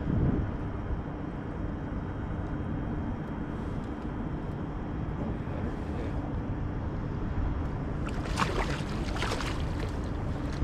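A steady low rumble runs throughout, and from about eight seconds in a hooked flathead catfish splashes and thrashes at the water's surface beside the boat in a quick run of irregular splashes.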